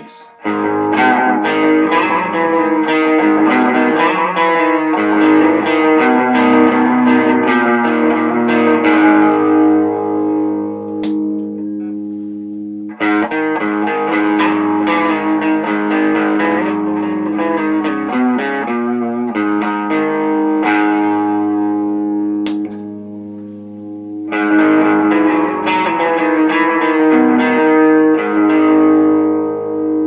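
Electric guitar played through a home-built delay pedal and a Randall amp: chords strummed and left to ring, fading slowly, with a delay adding a little space. Fresh chords are struck about halfway through and again near the end.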